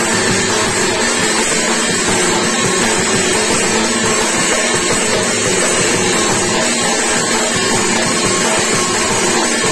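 Loud dance music played over a sound system, dense and without breaks.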